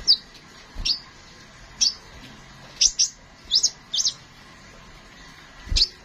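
Crimson sunbird giving short, sharp, high chirps, singly and in quick pairs, about ten in all and loudest in the middle, with a couple of low thuds among them.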